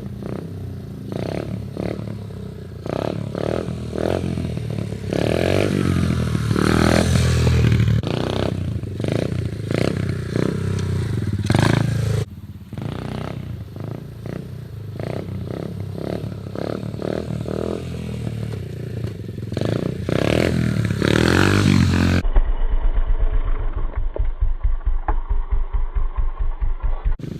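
Pit bike engine revving up and dropping back again and again, with clatter and scraping around it. About 22 seconds in the sound cuts abruptly to a duller, muffled recording of a steady low pulsing, like the engine running at low speed.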